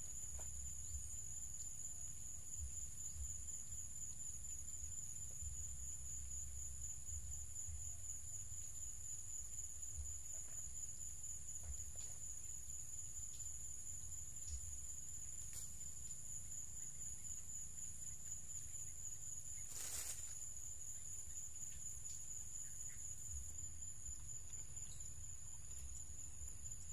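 Insects trilling in one continuous, high, even tone over a low steady rumble, with a few faint clicks, the clearest about twenty seconds in.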